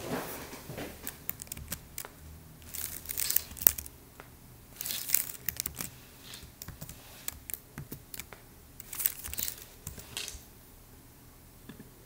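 Keyboard keys clicking in short runs as a password is typed, mixed with several bursts of rustling, crinkling noise.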